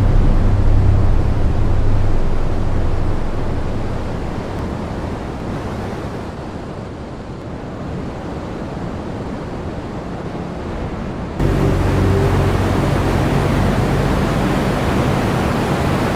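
Wind rushing and buffeting the microphone, with a low rumble underneath. It eases off in the middle and jumps back up abruptly about eleven seconds in.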